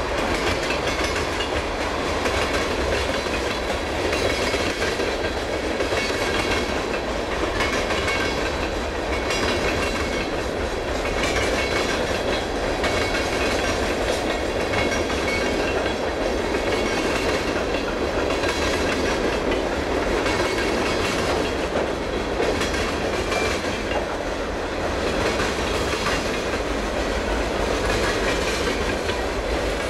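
Freight cars rolling past at a steady speed: a continuous steel-wheel rolling noise, with wheels clicking over rail joints at intervals.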